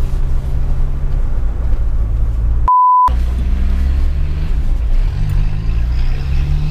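Peugeot 306 turbodiesel engine running under way, heard from inside the cabin as a steady low drone. Nearly three seconds in, the engine sound drops out for under half a second under an inserted high-pitched bleep tone. After that the engine note shifts a little in pitch.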